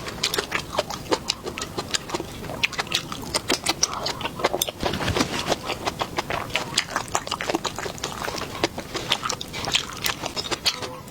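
A person chewing and smacking their lips while eating, with many quick, irregular wet clicks.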